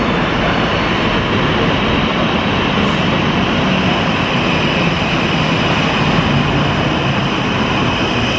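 FS E444R electric locomotive hauling Trans Europ Express carriages, running along the platform: a steady, loud noise of wheels on rails.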